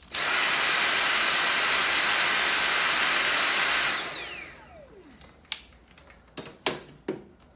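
Dyson V7 Motorhead cordless stick vacuum running in max (boost) mode: it starts at once with a loud rush of air and a high steady whine, runs about four seconds, then is switched off and the motor's whine falls away as it spins down. A few faint clicks of handling follow.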